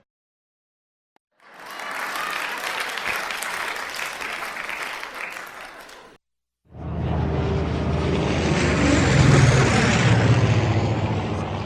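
Two separate sound effects in a row. First comes a few seconds of dense crackling noise that fades out. After a short gap comes a low droning rumble that swells and then eases off.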